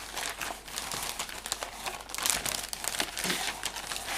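Paper and packaging rustling and crinkling in irregular handfuls as documents and packing are rummaged through in a box.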